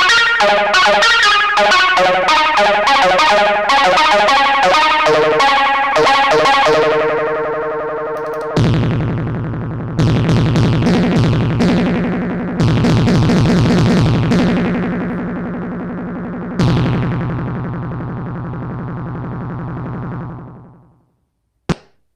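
Arturia MicroFreak synthesizer playing a factory preset. A fast run of short, bright notes gives way, about eight seconds in, to lower held notes struck every couple of seconds. These fade out near the end, followed by a short click.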